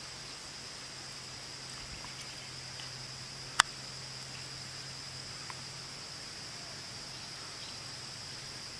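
Steady high-pitched insect chorus, with one sharp click about three and a half seconds in and a faint low hum that stops about six seconds in.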